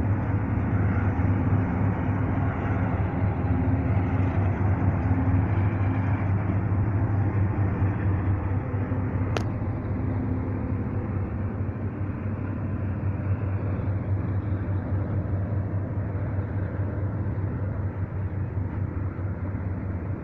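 Union Pacific intermodal freight train rolling past: a steady rumble of wheels on rail with a low diesel hum from its locomotives that fades over the first half. There is one sharp click about nine seconds in.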